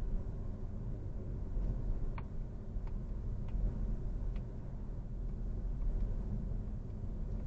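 Car cabin noise while driving at about 35 mph: a steady low rumble of tyres and engine, with a few faint ticks between about two and four and a half seconds in.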